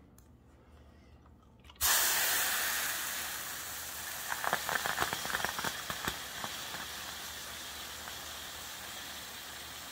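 A hot steam iron pressed onto a wet towel, steam hissing out from under it: the hiss starts suddenly about two seconds in, crackles and sizzles a couple of seconds later, then settles to a steady, slowly fading hiss. The steam is being driven into dented wood flooring to swell the crushed wood back up.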